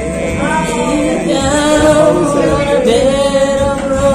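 A voice singing a song over a karaoke backing track, holding two long notes.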